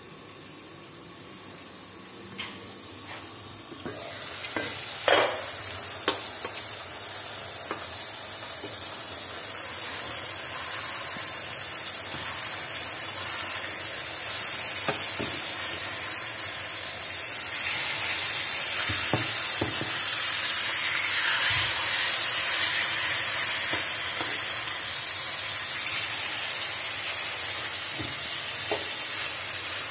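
Chicken pieces sizzling in a frying pan, starting about four seconds in and growing louder, with scattered clicks and scrapes of a metal fork turning them against the pan.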